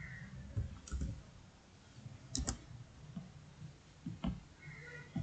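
Typing on a computer keyboard: sparse, irregular keystroke clicks, two coming close together about halfway through.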